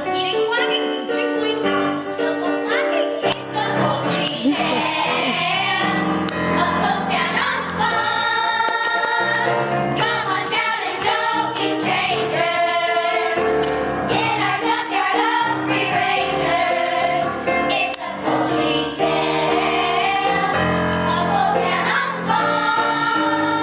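Voices singing a stage-musical number together over instrumental accompaniment.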